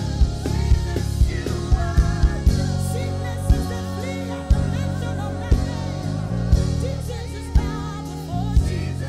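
Live band music: an electric bass playing busy low lines under steady drum hits, with a singer's melody over the top.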